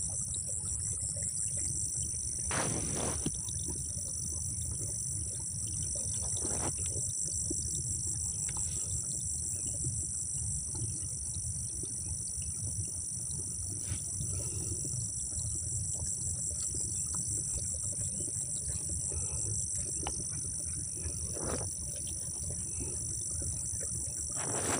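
Steady, high-pitched chorus of field insects such as crickets shrilling without a break, over a low steady rumble, with a few faint brief rustles.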